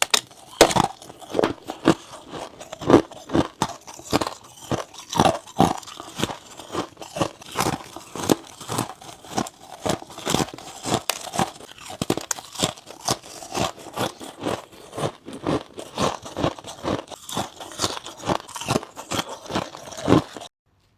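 Frost ice scraped from a freezer top or a humidifier, crunching as it is bitten and chewed close to the microphone, with sharp crunches about two to three a second. The sound cuts off suddenly near the end.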